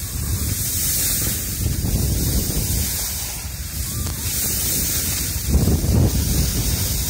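Wind buffeting a phone microphone carried downhill by a skier, an uneven low rumble with a stronger gust about five and a half seconds in, over the hiss of skis sliding on snow that swells and fades.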